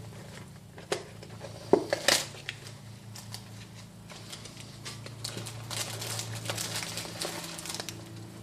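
Packaging of a new piston ring set being opened and handled: a few sharp clicks and rustles about one to two seconds in, then steady crinkling of the wrapping.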